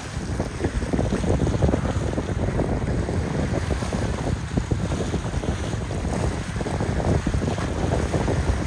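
Wind buffeting the microphone in uneven gusts, over the wash of waves and surf.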